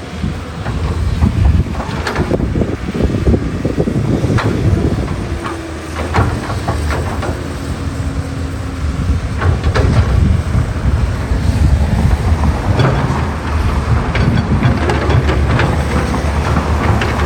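Excavator at work: a steady low engine drone with repeated knocks and clanks from the digging gear, and a faint whine that slides in pitch about five to eight seconds in.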